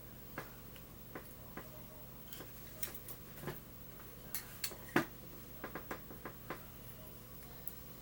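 Light, irregular clicks and taps of small lock pins being handled and set down while the lock is gutted, with the sharpest click about five seconds in and a quick run of clicks just after.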